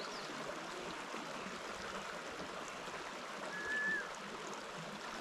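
Small mountain stream, the East Fork of the Jemez River, running with a steady babble of water; a short high whistle sounds about three and a half seconds in.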